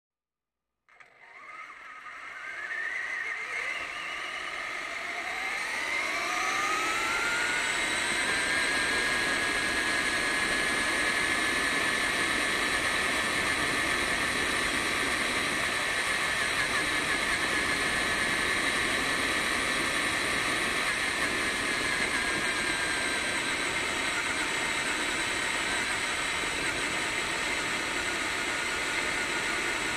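Radio-controlled truck running along a street, heard from its onboard camera: a motor and drivetrain whine rises in pitch over the first several seconds as it speeds up, then holds steady at speed over tyre and road noise.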